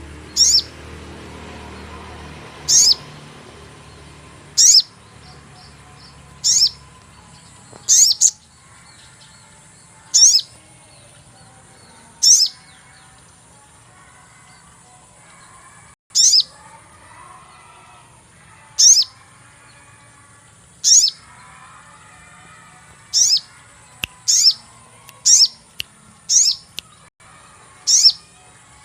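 Sogon bird's sharp 'cuit' call, a short high chirp sweeping downward, repeated about every two seconds and coming quicker near the end, played as a lure call for sogon birds. Fainter bird chatter runs underneath.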